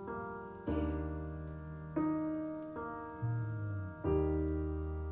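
Piano or electric-piano chords over a low bass, struck four times and left to fade between sung lines of a slow song, played back from a vinyl record through a DS Audio E3 optical cartridge.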